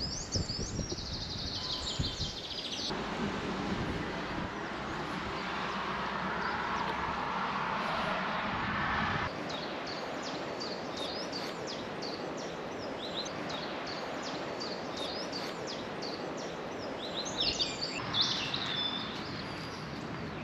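Small songbirds chirping and twittering in short bursts: at the start, again around ten seconds in, and near the end. Under them is a steady outdoor hiss whose character changes abruptly a few times.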